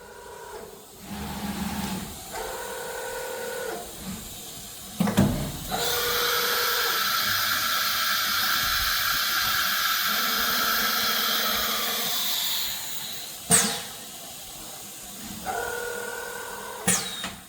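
Nesting CNC router's automatic tool change. The axis motors whine as the head travels, and there is a clunk about five seconds in. Then comes a loud, steady hiss of compressed air for about seven seconds. A sharp clunk follows, and the motors whine again as the head moves off, with a last clunk near the end.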